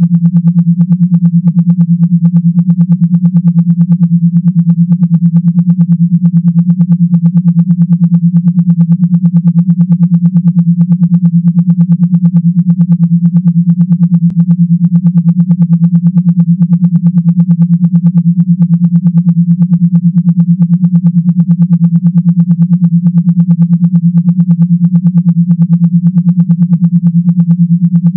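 Synthesized low-pitched vibration buzz, a steady loud tone pulsing rapidly, like a vibrating motor; the kind of tone played through a phone speaker to shake water or dust out of it.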